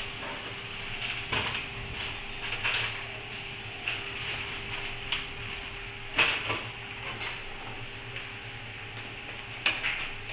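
Scattered metal clicks and knocks from working on the clamp bolts and frame of a hydraulic butt fusion machine, the loudest about six seconds in. A steady hum runs under them and stops with that knock.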